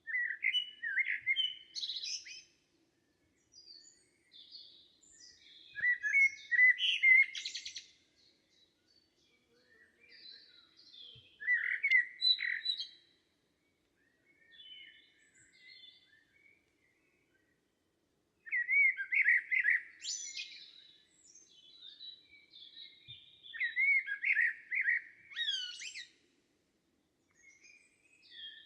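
Songbirds singing in woodland: short phrases of quick, gliding chirps and trills come every few seconds, with brief quiet gaps between them.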